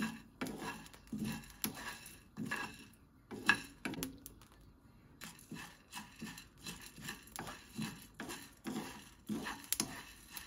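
Small wooden spoon stirring buckwheat groats in a dry hot pan while they are popped like popcorn: repeated scraping strokes, about one or two a second, with a few sharp clicks.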